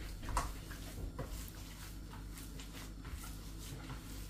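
Hands kneading a wet minced pork-and-beef mixture, just moistened with a little water: faint soft squelches and small clicks, over a steady low hum.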